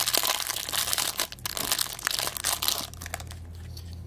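Thin clear plastic wrapper crinkling as fingers peel it off a small toy pin. The crackling dies away about three seconds in.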